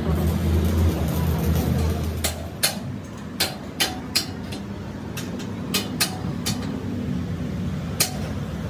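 A steady low hum that stops about two seconds in, followed by about a dozen sharp, irregularly spaced knocks.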